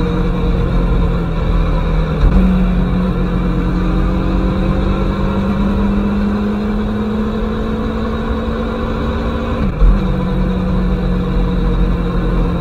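Aprilia Tuono motorcycle engine running on the move, heard from the rider's seat as a steady drone. Its revs step up about two seconds in and climb slowly. Near the end they drop back suddenly with a brief thump.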